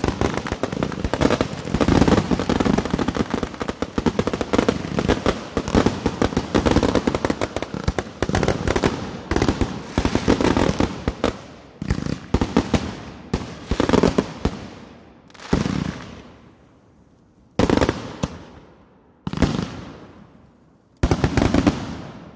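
Consumer fireworks cake firing from the ground: a dense, rapid barrage of bangs and bursts that thins out about two-thirds of the way through into four separate bursts, each a second or two apart.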